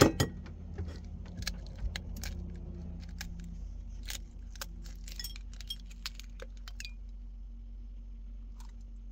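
A duck egg being cracked on the rim of a mixing bowl: one sharp crack at the start, then a run of small clicks and crackles as the thick shell is broken and prised apart, dying away about six or seven seconds in. A low steady hum runs underneath.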